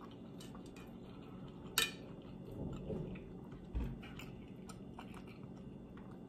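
Quiet close-miked chewing and mouth sounds of someone eating spaghetti, with scattered small clicks. There is a sharp clink of a fork against the plate about two seconds in, and a low thump near four seconds.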